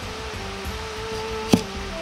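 A cleaver chops once through a komatsuna stem onto the cutting board, a single sharp knock about one and a half seconds in, over background music with sustained notes.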